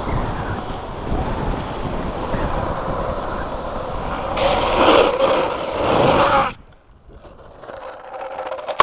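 Wind buffeting the microphone over the roll of a Landyachtz Dropspeed longboard's wheels on asphalt during a downhill ride, loudest about four to six seconds in, then dropping off sharply to a much quieter rolling noise.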